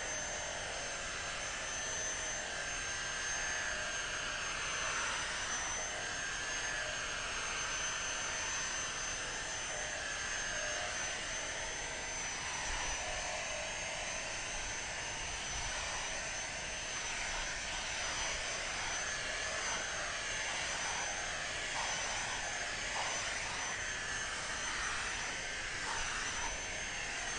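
Cordless Dyson handheld vacuum running steadily with a high-pitched whine as its motorized brush head is passed back and forth over a carpeted car floor mat, sucking up grass clippings, sand and dog hair.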